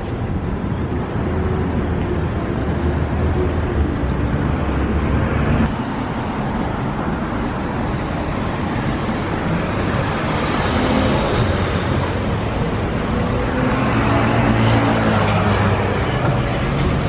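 Street traffic: a steady wash of passing cars, with a vehicle engine's hum growing louder about three-quarters of the way through.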